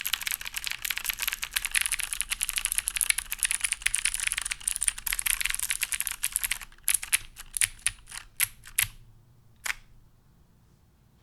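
Typing on an OTD 356CL mechanical keyboard with lubed, clicky Cherry MX Blue switches on a full aluminum plate. It is fast continuous typing for about six and a half seconds, then a handful of slower separate keystrokes, the last one near ten seconds in.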